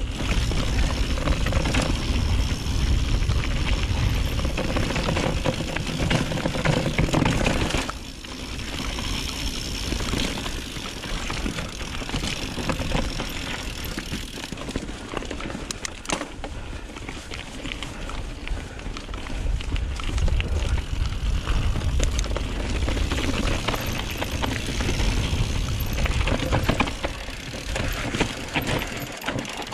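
Mountain bike in motion on a rough trail: wind buffeting the microphone over the rattle and crunch of the bike, with many small knocks. It is loudest for the first eight seconds or so, drops, then rises again about twenty seconds in.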